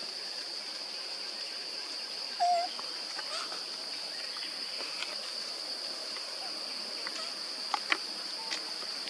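Steady high-pitched drone of insects, with a short squeak about two and a half seconds in and two sharp clicks near the end.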